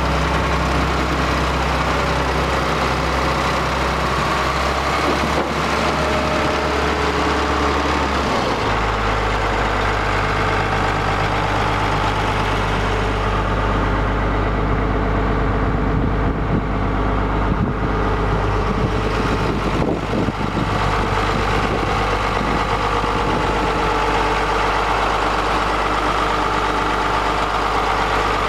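Engine of a 1986 Ford Cargo 7000 grain truck idling steadily, its low drone changing slightly about eight seconds in.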